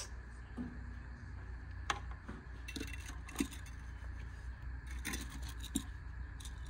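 Small tools and metal bits being handled and put away among other items: scattered clicks, light knocks and a metallic rattle, over a steady low hum.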